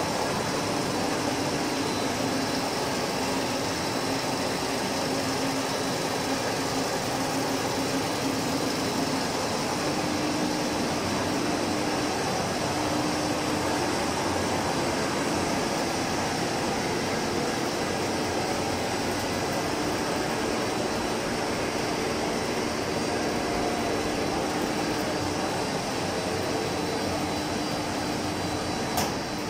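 Machinery of a garden-pipe extrusion line running: a steady mechanical din with a faint low hum throughout, and a single short click near the end.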